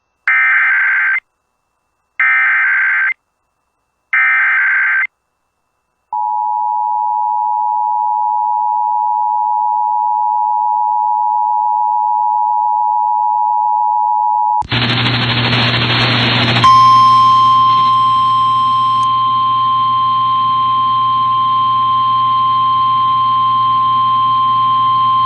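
Emergency Alert System SAME header: three one-second bursts of buzzy digital data tones, then the two-tone EAS attention signal held for about eight seconds. About fourteen seconds in, a burst of radio hiss and hum gives way to the single steady NOAA Weather Radio warning alarm tone over hiss and hum, announcing a winter storm warning.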